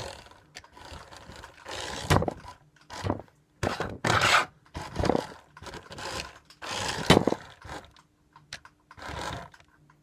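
Toy remote-control Audi R8 car driven in short, irregular bursts, its wheels scraping over the floor, with a few sharp knocks as it bumps into things.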